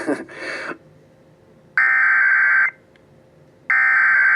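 Emergency Alert System SAME header data bursts: harsh, buzzing digital tones about a second long, sounding twice with a second's gap, which encode the coming alert. A short burst of noise comes first.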